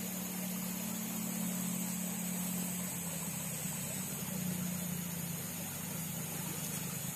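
A small engine running steadily, a low hum whose pitch drops slightly about three seconds in, over a steady hiss.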